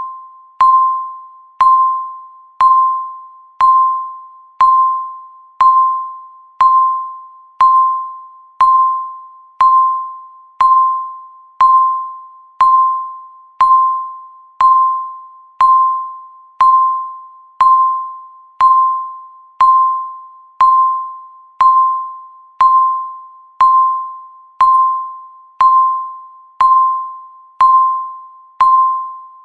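Countdown timer beep: a single mid-pitched electronic tone sounding once a second, each beep starting sharply and dying away before the next.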